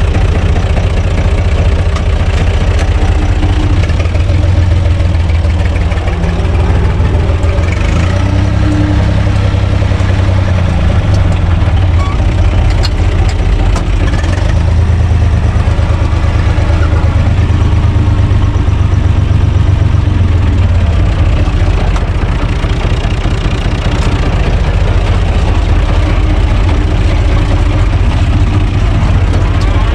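UTB Universal 445 DT 4x4 tractor's diesel engine running steadily as the tractor drives along, heard from inside its cab.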